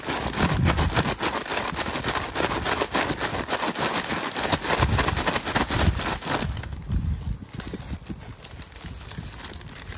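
McDonald's Shaker Fries paper bag shaken hard to coat the fries in seaweed seasoning: fast, rough rustling and crinkling of paper and plastic gloves, with the fries tumbling inside. It eases off about six and a half seconds in to quieter rustling as the bag is opened.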